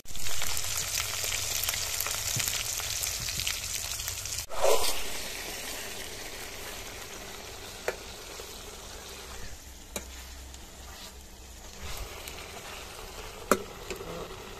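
Fish curry sizzling in oil in an iron karahi while a ladle stirs it. The sizzle is loud for the first four and a half seconds, stops abruptly, then goes on quieter, with a few sharp pops.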